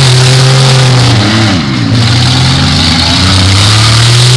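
Demolition derby cars' engines running loud, with a steady low drone and revs that rise and fall about one to two seconds in.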